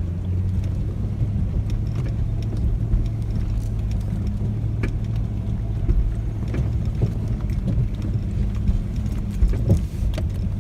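Off-road vehicle engine running steadily at low trail speed, with scattered knocks and rattles from the vehicle bumping over rough ground.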